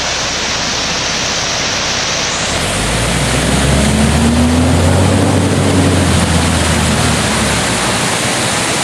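Water pouring steadily over a millpond's stone spillway, a constant rushing hiss. A low rumble swells about two and a half seconds in and fades out near the end.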